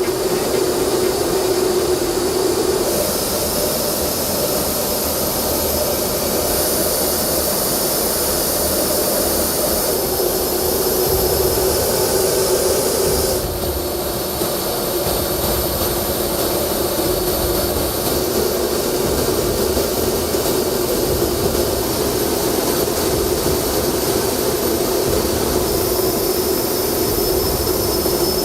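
Military jet engines running with a steady roar and a high whine. The sound changes abruptly several times, like cuts between separate shots.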